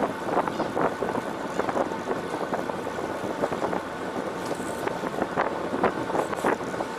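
Wind on the microphone over the noise of a fishing boat at sea, with irregular short knocks or splashes.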